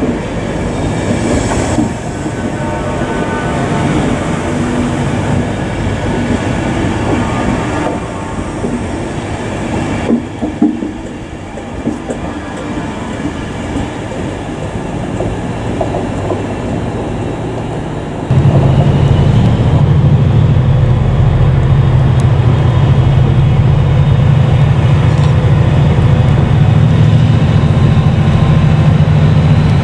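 An electric express train's coaches and driving van trailer rolling past on the track, with wheel clatter and knocks. About two-thirds of the way in, this gives way abruptly to a louder, steady low drone of a diesel locomotive engine running close by.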